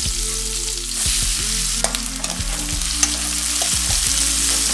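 Sliced onions sizzling steadily in hot groundnut oil in a stainless steel kadai, with a couple of sharp clicks.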